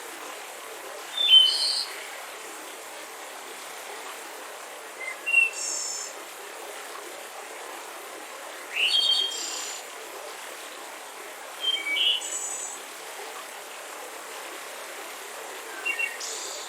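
Mountain river rushing steadily, with a small bird singing five short chirping phrases spaced every three to four seconds over it.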